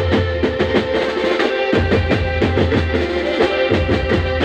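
Live band playing an instrumental passage through PA speakers: dhol and drum kit keep up a steady rhythm over a held note and deep bass.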